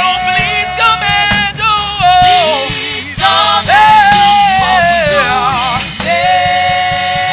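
Gospel worship music: a singer holding long notes that slide up and down, over instrumental accompaniment.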